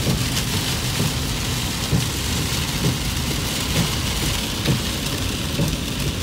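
Heavy rain falling on a moving vehicle's windows and body, heard from inside the cab, over steady engine and road noise.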